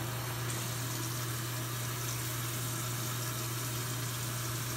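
Bathroom tap left running into the sink, a steady rushing of water, with a steady low hum underneath.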